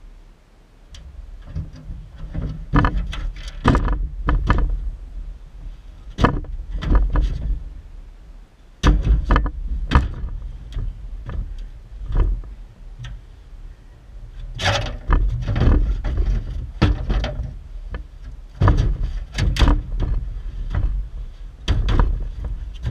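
Irregular knocks, scrapes and thumps on a pickup truck's sheet-metal bed, from boots shifting on it and a dead deer being dragged up over the tailgate, with a low rumble underneath.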